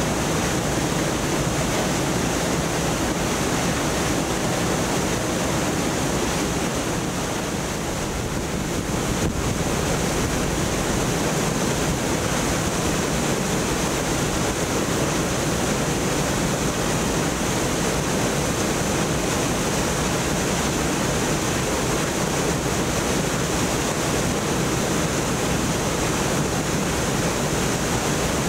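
Water gushing steadily from a weir outlet and crashing into the churning river below, a loud, even rush.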